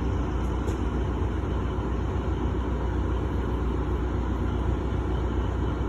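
Steady low rumble of a moving vehicle, even throughout, with no horn or voices.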